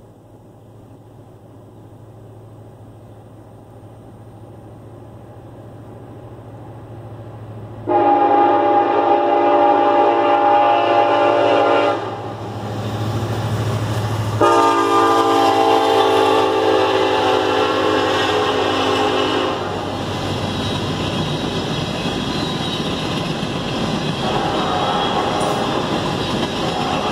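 A Norfolk Southern freight locomotive approaching, its rumble growing steadily louder, then sounding its horn in two long blasts, the first about eight seconds in and the second a couple of seconds after it ends. After the horn, the steady rumble and clatter of hopper cars rolling past.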